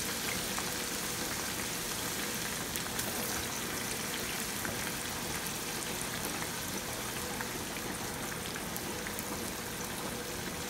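Thinly sliced red onions deep-frying in hot vegetable oil in a pan: steady sizzling with fine crackles.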